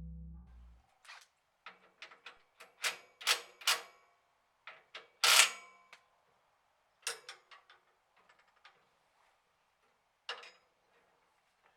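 Scattered sharp metallic clicks and clanks of steel parts and hand tools being handled, some in quick runs, the loudest about five seconds in. A low steady hum fades out within the first second.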